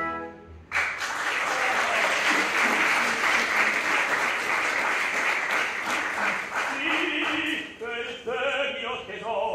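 Theatre audience applauding, breaking out just under a second in as the orchestra's last chord dies away. The applause thins near the end as a voice comes in.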